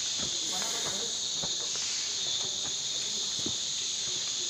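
Steady, high-pitched chorus of insects, with faint scuffs and knocks of footsteps on rock underneath.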